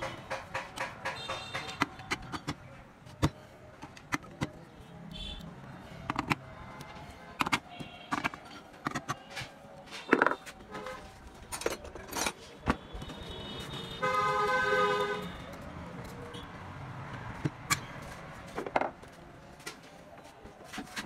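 Irregular metallic clicks and knocks of a hand tool working on an alternator's metal end housing. About two-thirds of the way through, a loud steady pitched tone sounds for a little over a second.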